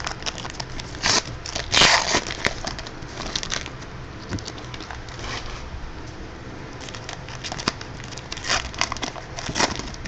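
Trading-card pack wrappers being torn open and crinkled, with cards handled: irregular crackling and tearing, loudest about two seconds in and again near the end.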